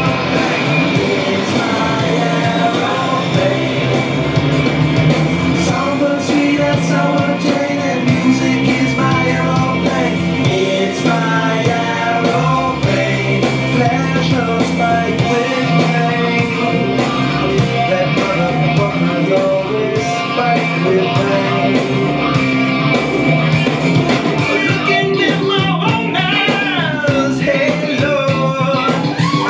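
Loud rock music with guitar, a steady beat and a singing voice.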